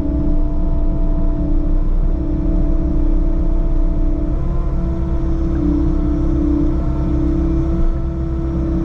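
Bobcat skid steer (compact track loader) working as it grades ground: a steady diesel engine rumble with a constant whine that gets louder about halfway through.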